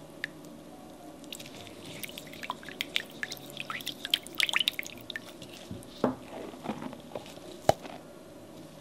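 Irregular small wet clicks and squishes of soft, sticky food being worked, dense through the middle, with a single sharper click near the end as the loudest sound.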